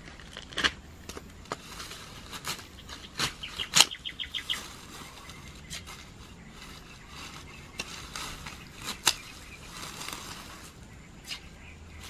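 Hand shears snipping weeds at ground level: scattered sharp clicks of the blades closing, with rustling of the cut stems and leaves. A brief rapid run of high ticks comes about four seconds in.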